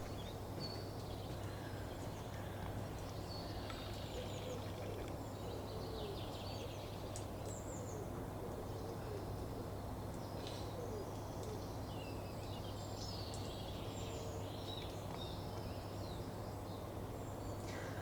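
Faint birdsong: scattered high chirps and trills from several birds, with a few lower calls, over a steady low hum.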